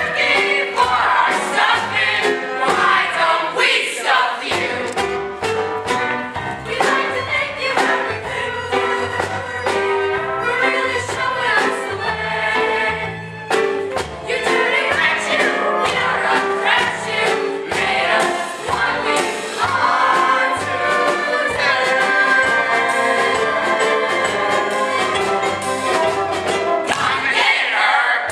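A chorus of many voices singing a musical-theatre show tune together over instrumental accompaniment.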